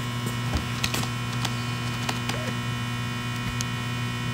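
A steady low electrical hum, with a few faint, short clicks scattered through it.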